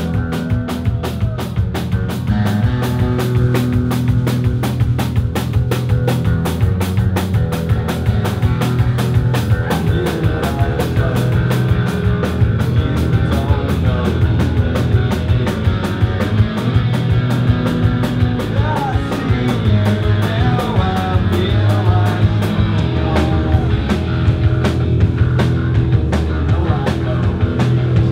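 Live punk rock band playing loud: drum kit with a fast, steady beat, distorted electric guitars and electric bass.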